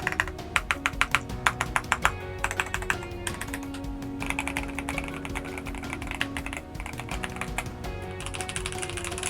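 Typing on a mechanical keyboard: fast runs of clacking keystrokes in several bursts with short pauses between, over background music.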